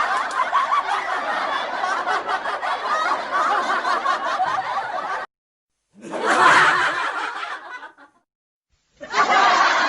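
Laughter sound effects: a long stretch of snickering laughter that cuts off suddenly about five seconds in, then two shorter laughs, each about two seconds long, with brief silences between them.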